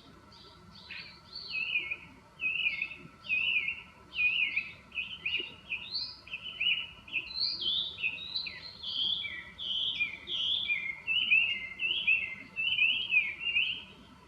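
Chinese hwamei singing a long, loud run of varied whistled phrases that quickly slide up and down, starting about a second in.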